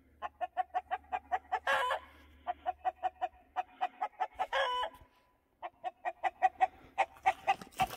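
Chicken clucking in a rapid run of short calls, about five a second, broken by two longer, louder squawks about two seconds and four and a half seconds in.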